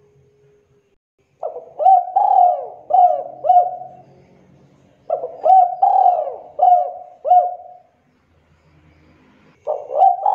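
Spotted dove cooing: two complete phrases of four or five coos each, a second or so apart, and a third phrase beginning near the end.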